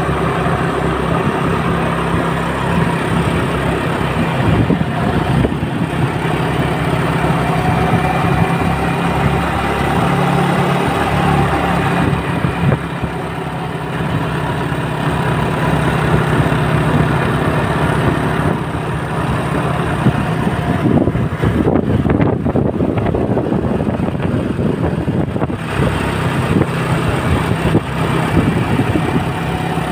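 Large bus's diesel engine running at idle: a steady low engine hum with road noise and no horn sounding.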